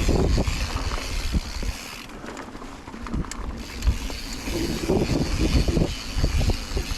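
Mountain bike riding a dirt trail: wind buffeting the microphone, with tyre noise and scattered knocks and rattles over the bumps. It eases off briefly about two seconds in, then picks up again.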